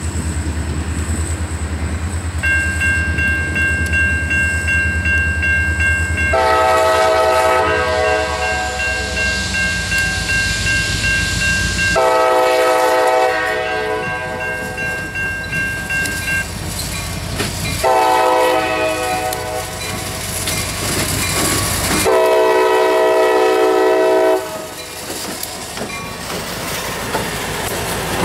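Air horn of an EMD SD40-2 diesel locomotive sounding four blasts, long, long, short, long: the grade-crossing warning signal. Under it runs the low rumble of the locomotive's diesel engine. After the last blast the locomotives pass close by, and their wheels clatter over the rail.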